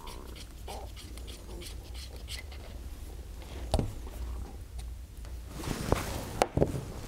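A hex screwdriver unscrewing the valve assembly retainer from an airgun's metal valvehouse, with light clicking and scraping of tool on metal. A few sharp knocks and a brief rustle near the end as the retainer comes free and is handled.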